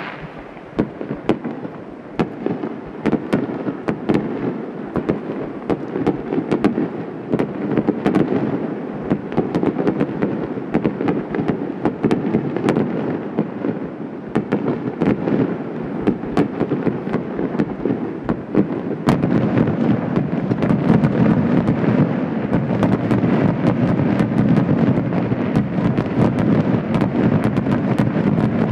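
Large aerial firework shells launching and bursting in rapid succession. Many sharp reports and crackles blend into a continuous rumble, which grows louder about two-thirds of the way through as more shells go up at once.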